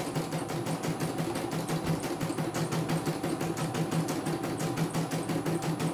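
CNY E900 computerized embroidery machine stitching a design: the needle mechanism clatters in a rapid, even rhythm over a steady motor hum.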